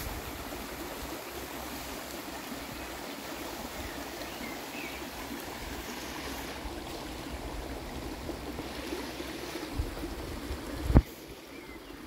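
A shallow forest stream running steadily over stones. A single sharp, low thump comes about a second before the end, and the stream sounds quieter after it.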